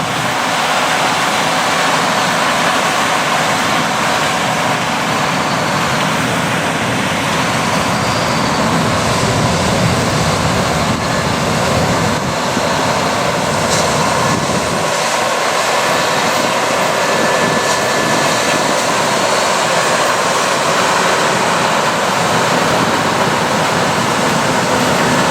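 Case IH combine and Case IH Quadtrac tractor with grain cart running together in a corn harvest, a loud, steady engine and machinery noise.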